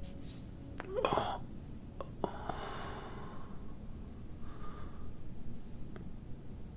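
A man's uneasy breathing and sighs in restless sleep, a few short breaths, with the loudest, a gasp-like exhale, about a second in.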